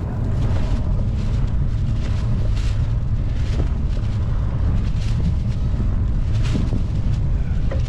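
Wind buffeting the camera microphone: a steady low rumble with gusts that flare every second or so.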